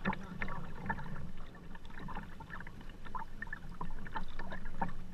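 Kayak paddling: the paddle blades dip and drip, making irregular small splashes and trickles of water, over a steady low rumble.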